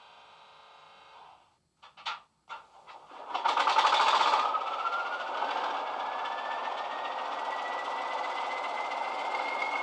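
Class 20 diesel locomotive sound file played through a model locomotive's DCC sound decoder speaker: a few clicks, then the English Electric engine fires up loudly about three seconds in and settles into a steady run, with a turbocharger whine slowly rising in pitch.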